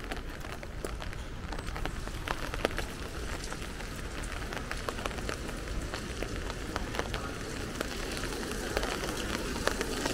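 Light rain falling on wet paving, with many separate sharp drop ticks close by.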